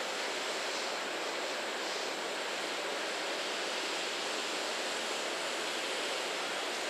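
A steady, even rushing noise with no distinct events: outdoor ambience heard from afar across the rail yard.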